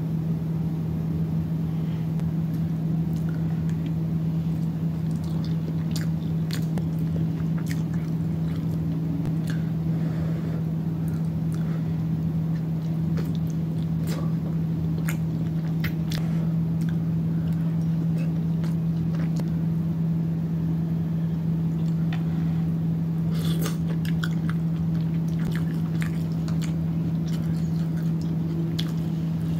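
Close-up eating sounds from a seafood boil of snow crab, sausage and corn: chewing and lip smacking, heard as scattered short clicks, with a denser run of sharper clicks a little past two thirds of the way in. A steady low hum runs underneath and is the loudest thing.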